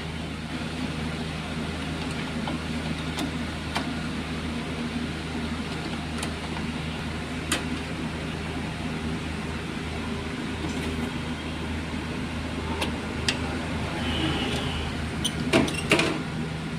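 Scattered sharp clicks and knocks of small hardware parts being handled, clustered near the end, over a steady low hum.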